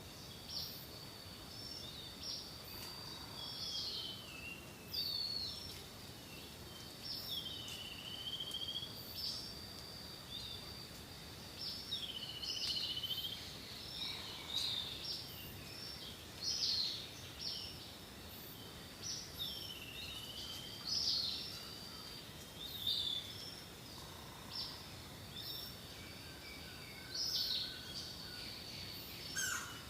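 Birds calling outdoors: many short whistled chirps and sweeping notes in irregular bursts, over a steady thin high-pitched drone and a soft background hiss.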